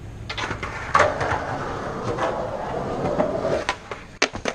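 Skateboard wheels rolling on concrete, a steady rumble with small clicks. Near the end come several sharp clacks of the board as the skater jumps down the stairs.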